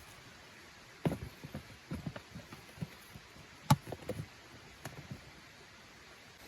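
A series of irregular light knocks and taps over a few seconds, with one sharper knock about halfway through.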